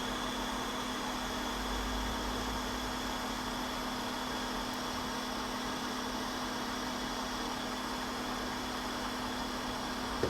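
A blower fan running steadily: an even hiss with a constant low hum underneath.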